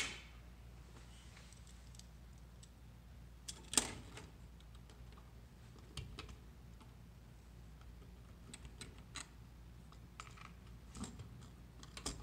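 Scattered small clicks and taps of a screwdriver and a plastic thermostat wall plate as the plate is handled and screwed to the wall. The sharpest click comes about four seconds in, with a run of lighter ticks near the end.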